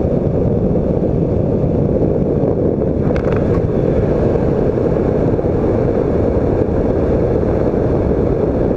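Weight-shift microlight trike's engine and pusher propeller running steadily, mixed with wind rush on the microphone, as the trike rolls along the runway: a loud, even rumble.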